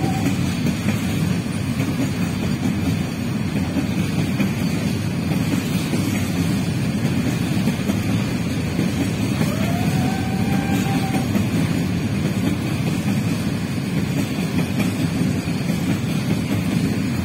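Long container freight train of flat wagons rolling past, a steady rumble of wheels on the rails.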